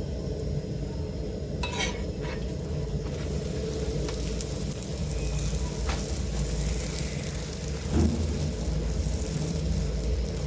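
Chapati frying in oil in a hot pan, a steady sizzle, with a light knock about two seconds in and another near the end.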